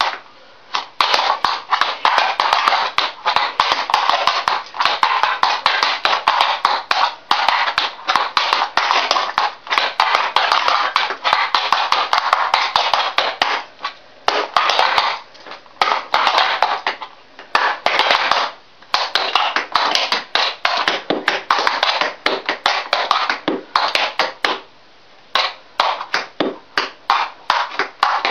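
Tap shoes striking a hard tiled floor in rapid, rhythmic taps while dancing time steps and pull backs, with a few brief pauses between phrases.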